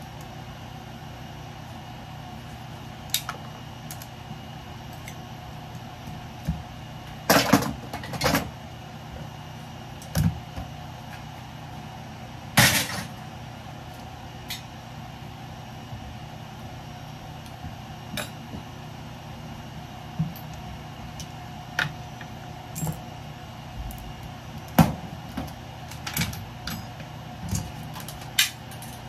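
Ventilation fan running with a steady hum, under irregular sharp clicks, knocks and clatters of scrap parts being handled. A cluster of louder knocks comes about a quarter of the way in and another a little before the middle.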